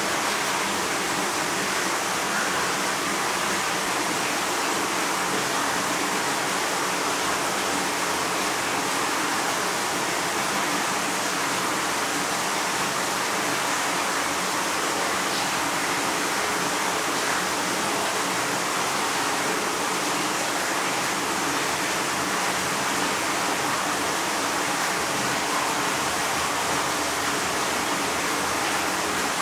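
Steady, even rushing noise with a faint low hum underneath, unchanging throughout, with no calls or other distinct sounds.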